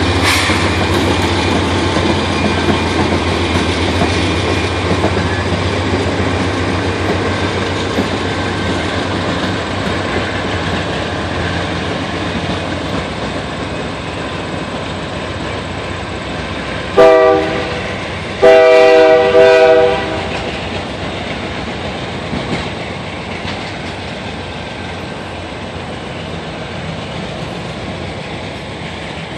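Diesel freight train passing: the locomotives' engines drone at first and fade as the freight cars roll by on the rails. A little past halfway a train horn sounds one short blast and then a longer one, the loudest sound in the stretch.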